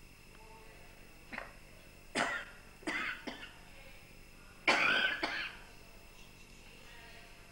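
An elderly woman coughing: a slight cough, then a run of coughs in quick succession, the loudest pair about five seconds in.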